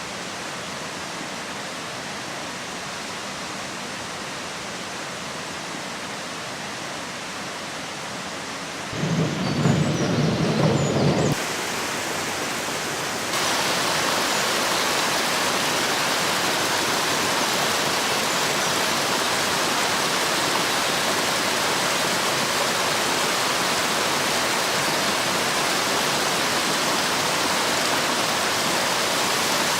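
Spring-fed waterfall pouring steadily, a constant rushing of falling water. The level jumps up twice, about a third and half way in, and for a couple of seconds before the first jump a louder low rumble sits under the rush.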